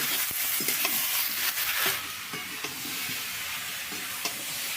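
Spice paste and vegetables sizzling in hot oil in a pan while a spatula stirs and scrapes through them: the masala being fried down. The sizzle is louder for the first two seconds, then settles.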